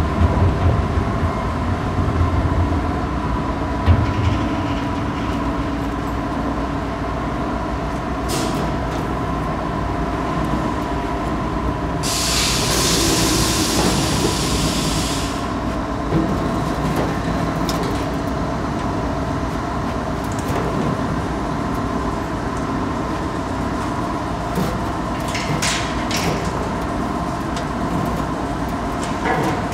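Bead-garland factory machinery running with a steady clattering hum and a few held tones. A hiss lasts about three seconds midway, and a few sharp clicks come near the end.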